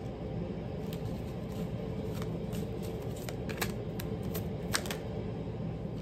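A tarot deck being shuffled and handled: irregular soft clicks and flicks of card stock, with a few sharper snaps past the middle, over a steady low background hum.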